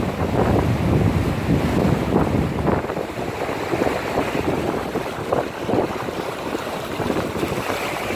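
Cars driving through deep king-tide floodwater on a street, the water sloshing and splashing in their wakes, with wind buffeting the microphone. It is a little louder in the first three seconds.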